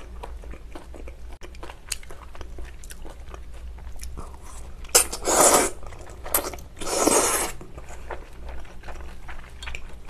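Close-miked mouth sounds of a person eating: steady chewing with small wet clicks, then two loud slurps of Chinese glass noodles about five and seven seconds in.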